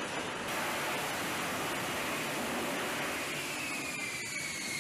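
Steady loud roar of an F-35B Lightning II's jet engine and lift fan during a vertical landing on a ship's deck. About three seconds in, a thin whine comes in and slowly falls in pitch.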